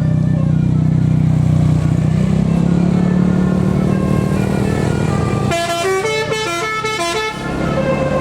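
A tour bus's engine running loud and steady as it pulls up a hill, then, about five and a half seconds in, a multi-tone telolet horn plays a quick tune of stepped notes for about two seconds, with a few more horn notes near the end.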